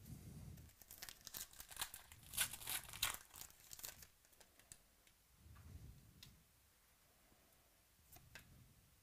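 A foil trading-card pack wrapper torn open and crinkled by hand: a dense run of sharp crackles for about three seconds, then quieter handling with a few scattered clicks as the cards are taken out.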